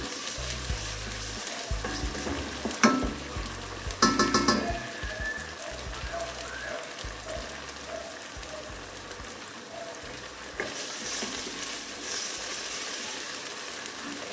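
Sliced onions and ginger-garlic paste sizzling in hot oil in a stainless steel pot, stirred with a wooden spoon, with two sharp knocks about three and four seconds in.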